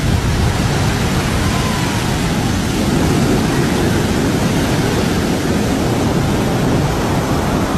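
Large ocean waves breaking over rocks and onto a beach: a loud, steady rush of surf.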